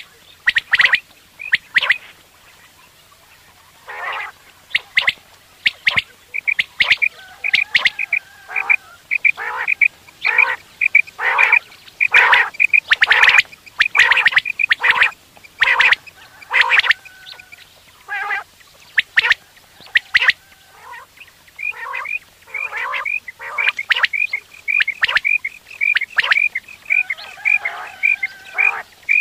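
Quails calling: quick runs of short, high chirping notes mixed with louder, harsher calls, with a pause of about two seconds near the start.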